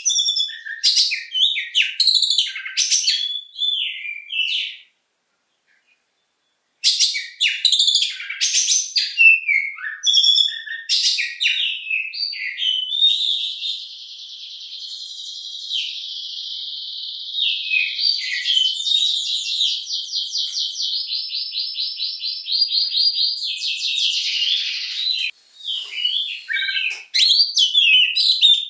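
Oriental magpie-robin singing loud, varied whistled phrases, broken by a two-second gap about five seconds in. Midway it goes into a long, fast run of rapidly repeated notes lasting about ten seconds: the long 'nembak' burst that keepers prize in a kacer. Varied phrases return near the end.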